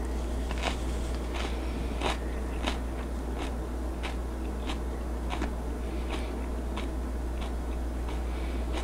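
A person chewing a bite of raw, juicy red pepper: a crisp crunch about every two-thirds of a second, in an even rhythm.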